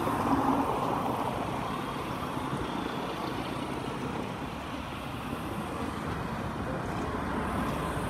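Steady road traffic noise from passing cars and motorcycles.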